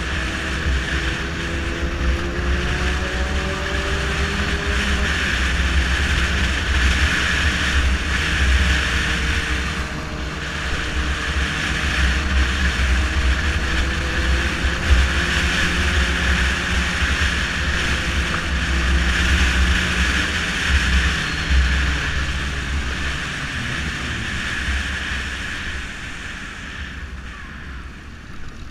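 Sport motorcycle ridden through traffic: the engine note rises and falls with the throttle in the first few seconds under a heavy rush of wind on the microphone, and grows quieter near the end as the bike slows.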